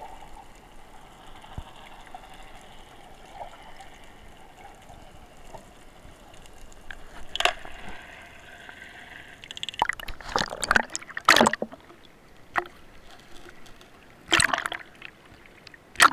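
Seawater sloshing and splashing around an underwater camera near the surface. A faint steady hiss gives way to several sharp splashes, about seven seconds in, again around ten to eleven seconds, and near the end.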